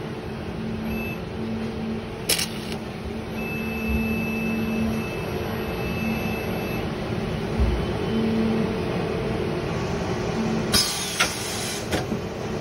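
Automated motor-stator welding machine running with a steady hum, with a single click a couple of seconds in and a short burst of hissing near the end followed by a couple of clicks.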